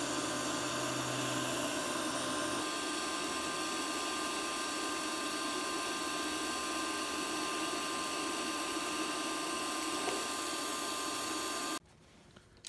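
TIG welding arc on steel: a steady hiss with faint steady whining tones, with filler rod fed into a gapped corner joint. The arc cuts off abruptly near the end.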